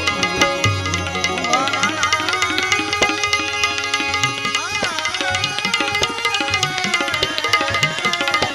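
Instrumental interlude of a Gujarati devotional bhajan: tabla keeping the rhythm under a wavering melody line and held tones, with quick sharp ticks on top.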